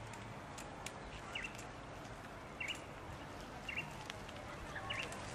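A bird giving a short chirping call four times, about once every second, over a steady background of outdoor noise.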